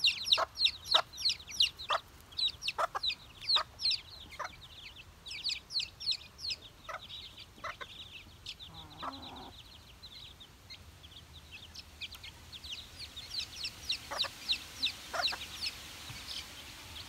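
Young chicks peeping: quick runs of short, high, falling peeps, thinning out in the middle and picking up again near the end. One lower call about halfway through.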